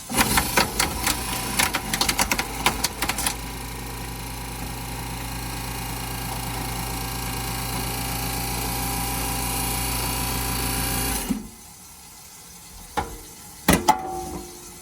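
Garbage disposal motor switched on after being unjammed. It clatters and rattles for the first few seconds as loosened debris is chopped up, then runs smoothly with a steady hum, freed, and is switched off about eleven seconds in. A few sharp knocks come near the end.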